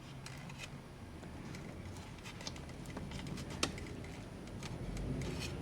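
Scattered light clicks and rustles of hands handling a wire harness and tape, with one sharper tick just past the middle, over a low steady hum.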